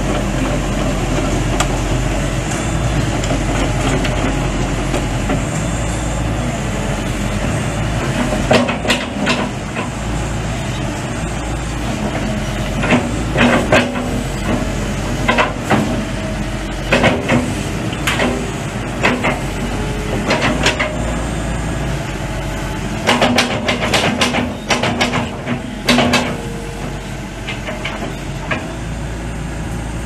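Hitachi ZX120 excavator's diesel engine running steadily while the boom, arm and bucket are worked hydraulically. From about nine seconds in come repeated sharp clanks and knocks, some in quick clusters.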